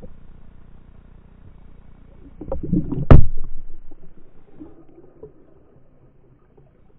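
Muffled water noise heard from underwater through a camera housing, with a cluster of dull knocks around two and a half seconds in that builds to one sharp, loud knock, then fades.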